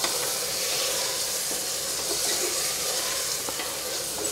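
Whole masoor lentils and fried potatoes sizzling steadily in oil and masala in a pressure cooker, stirred with a wooden spatula that gives a few faint scrapes and taps.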